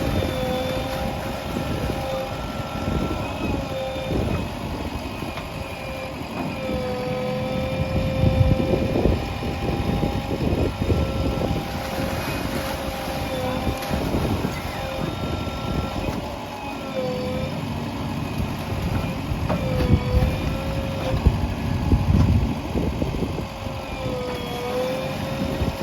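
JCB 3DX backhoe loader's diesel engine and hydraulics running under working load, with a steady drone that sags in pitch now and then as the digging loads it. Irregular low knocks and rumbles of the bucket working the soil run underneath.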